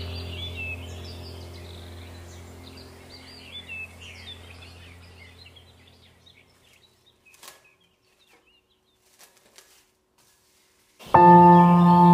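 Soft ambient background music with birdsong chirping over it, fading out over about six seconds. Then a few faint clicks, and a new ambient music track with ringing, bell-like tones starts abruptly near the end.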